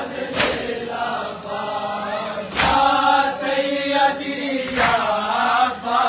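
A crowd of men chanting a Shia nauha (mourning lament) together, with loud collective strikes of matam (hands beating on chests) landing in unison three times, about every two seconds.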